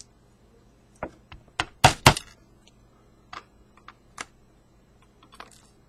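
Irregular sharp clicks and taps of a pin-tumbler lock being taken apart by hand, small metal parts and tools knocking together, with the loudest cluster about two seconds in.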